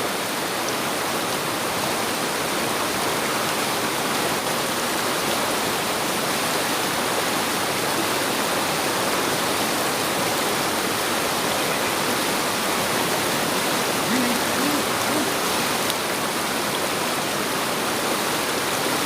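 River water flowing steadily, an even rushing hiss.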